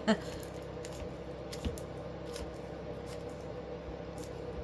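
Scissors snipping slowly through a thick folded bundle of poly ribbon: a few separate faint snips, with a low steady hum underneath.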